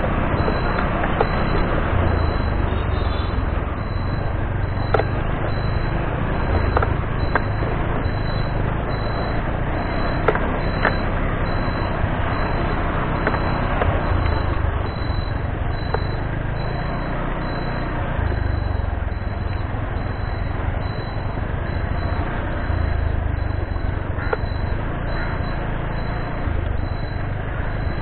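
Motorbike riding, heard from a handlebar-mounted action camera: a steady heavy rumble of wind and road noise with the ride's running noise, and a few sharp knocks from bumps in the rough path.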